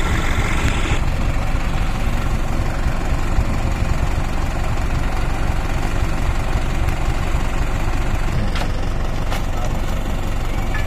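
Diesel engine of a Mitsubishi Fuso Canter dump truck idling steadily, with a few short knocks near the end.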